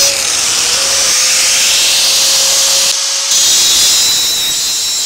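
Angle grinder grinding a steel tank: a loud, steady, harsh hiss with a faint steady whine under it. The sound shifts abruptly about three seconds in.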